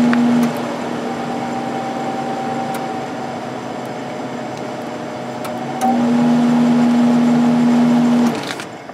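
Fan motor of a Sharp 8500 BTU window air conditioner (Samsung fan motor) running, a steady blower whirr with a strong hum and a higher whine. The hum drops away about half a second in and returns after a short rising whine about six seconds in. Near the end the sound dies away as the unit is switched off.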